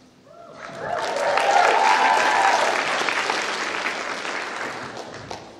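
Audience applauding, building up about half a second in and tapering off toward the end.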